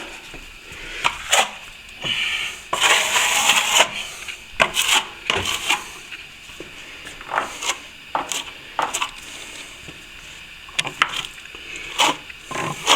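Plastering hand tools being handled and set down: scattered knocks and clinks, with a short scrape about three seconds in.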